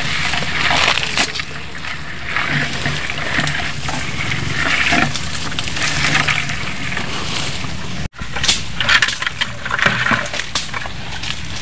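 Leaves and branches rustling as people push through dense shrubs, with footsteps sloshing through wet, muddy ground.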